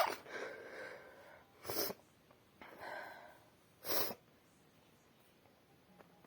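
A woman breathing and sniffing after a wet sneeze into a tissue: breathy exhales with two short, sharp sniffs about two seconds apart.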